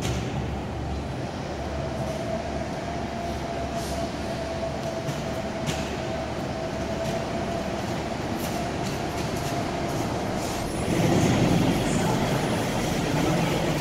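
New Flyer diesel-electric hybrid articulated buses running in an underground transit station: a steady low engine rumble with a faint thin whine over it. About eleven seconds in, a second bus pulls into the platform and the sound grows louder.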